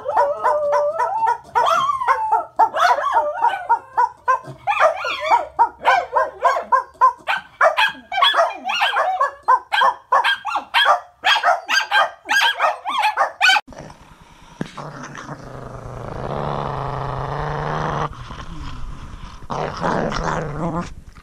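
A Pembroke corgi and a cavalier-mix dog barking rapidly at a window, mixing sharp barks with high yips and drawn-out howl-like notes. The barking stops abruptly about two-thirds of the way through, and a low steady growl follows in two stretches as the corgi snarls over a bowl.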